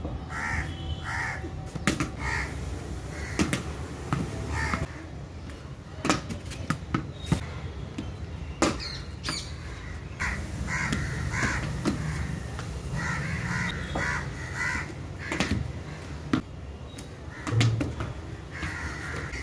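Sharp knocks, about eight spread a second or more apart, from a cricket bat hitting a tennis ball and the ball striking the terrace walls and floor. Between them a bird calls over and over in short repeated calls.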